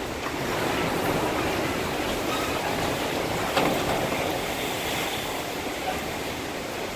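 Hurricane Maria's wind blowing hard in gusts, a dense rushing noise that swells about a second in and eases near the end. A single sharp knock about halfway through.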